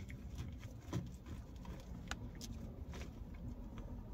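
White plastic fork scraping and clicking against plastic takeout containers of biscuits and gravy: a few short sharp clicks, the clearest about one and two seconds in, over a low steady hum.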